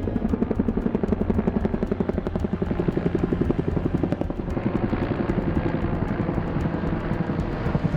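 Firefighting helicopter flying, its rotor blades making a fast, even chopping beat over the engine's steady noise.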